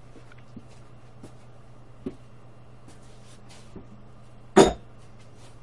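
Hand tools being handled off to the side: a few light knocks and clicks, then a loud, short metallic clank about four and a half seconds in, over a steady low background hum.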